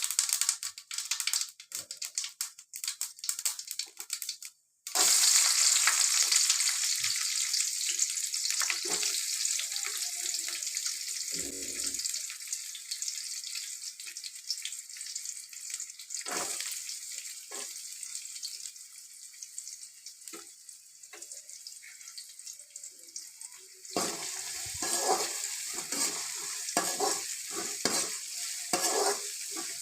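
Food frying in hot oil in a cooking pan. First there are irregular crackling pops. After a short break a loud sizzle starts and slowly dies down, and near the end a spoon stirs the pan with scraping clicks.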